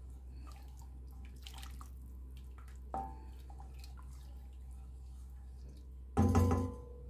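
Cookware clinking over a low steady hum: a light ringing clink about three seconds in, then a louder clank with a brief ring near the end, with faint ticks between.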